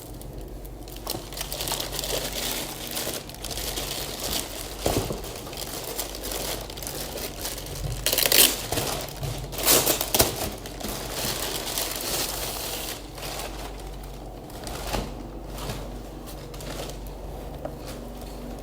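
Packaging crinkling and rustling as it is handled and unwrapped, with two louder bursts of crackling about eight and ten seconds in.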